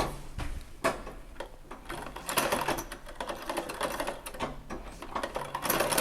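Vintage Singer 128K sewing machine running: a few single clicks, then a rapid, even clatter of needle strokes from about two seconds in.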